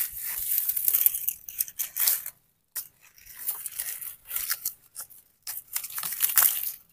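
Gloved hand scraping and raking through dry soil and crumbling rotten wood under a log: irregular bursts of scratchy rustling with a couple of short pauses.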